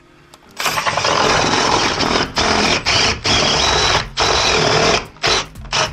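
Electric drill boring into a wall, starting about half a second in and running in several bursts with short pauses between them.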